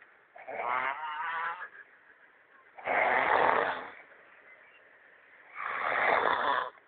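A person snoring loudly in sleep: three long snores, each about a second, spaced about two and a half seconds apart with each breath.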